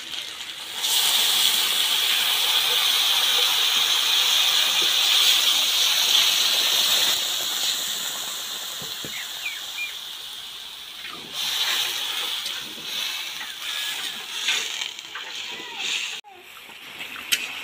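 Water poured into a hot iron kadai of frying goat skin and spices, hissing and sputtering loudly as it hits the hot oil, then slowly dying down. A second, shorter flare of sizzling follows later, with the scrape and clink of a metal ladle stirring in the wok.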